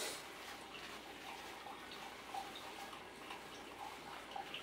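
Faint rustling and small soft ticks of paper towel being unrolled from a plant's root ball, with a light knock right at the start.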